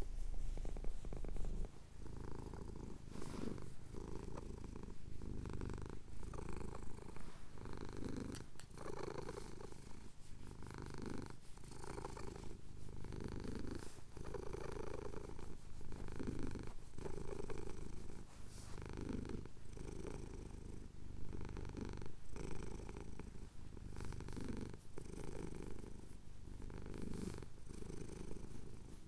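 Domestic cat purring close to the microphone while having its chin scratched, the purr swelling and fading with each breath about once a second.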